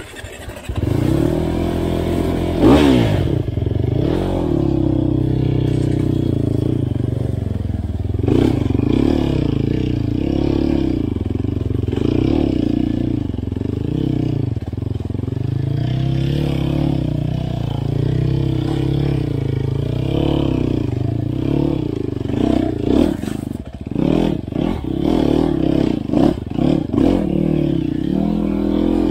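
Dirt bike engine running hard on a rough trail, revs rising and falling as the throttle is worked. There are quick rev blips near the end, with knocks and rattles from the bike over the ground.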